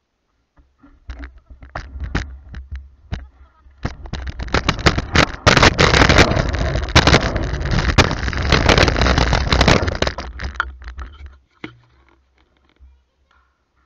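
Kick scooter rolling over rough asphalt: a loud, gritty rolling noise full of small clatters, building about four seconds in and dying away about eleven seconds in, over a low rumble.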